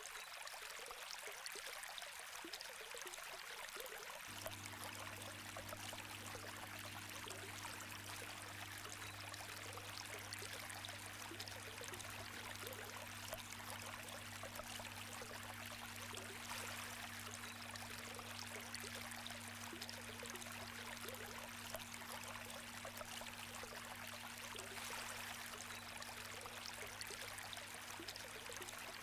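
Faint steady hiss, with a low steady hum joining about four seconds in.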